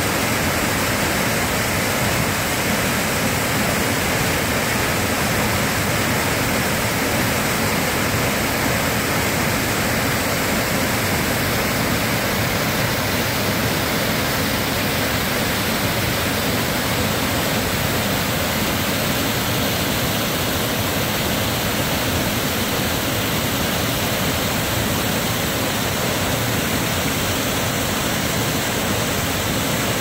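Sol Duc waterfall plunging into a narrow rock gorge: a steady, unbroken rush of falling water.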